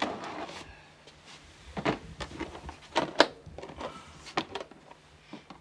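Handling noises: a case dragged out over a steel cabinet shelf, then a string of irregular sharp knocks, clicks and rustles as objects and papers are moved about.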